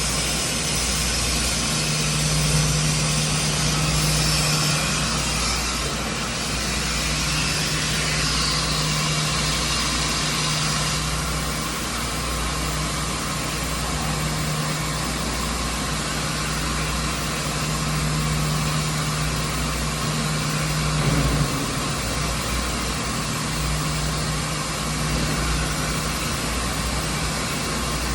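Steady workshop machine hum with a low droning tone that cuts in and out every few seconds over a constant noisy background.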